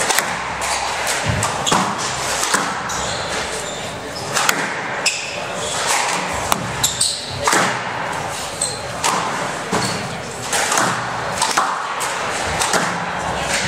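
Squash rally: the ball cracking off racquets and the front wall in quick irregular succession, with sharp hits every half second to a second echoing in the enclosed court.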